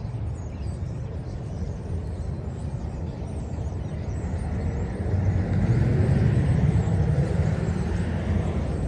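Diesel semi-truck pulling a dump trailer, its engine rumbling as it drives slowly by, growing louder about five seconds in.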